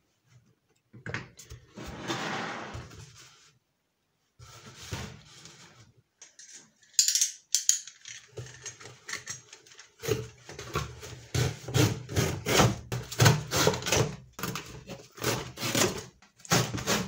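Cardboard box being handled and shifted on a table, first with a scraping rustle, then a dense run of knocks, scrapes and clatters near the end as hands work inside the box.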